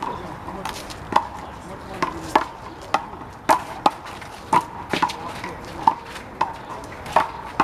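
A rubber handball being slapped by hands and bouncing off the wall and the court in a one-wall handball rally: a quick, uneven run of sharp smacks, about two a second, each with a brief ring.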